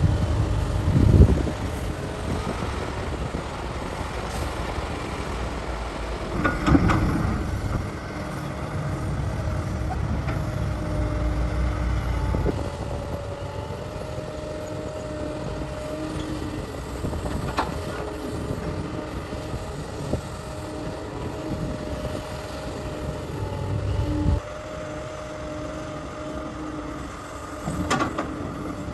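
Cat 6015B hydraulic mining excavator running under load, a steady diesel drone with a level hydraulic whine. A few loud thumps of material being loaded, about one at the start, another around 7 s, and more near the end.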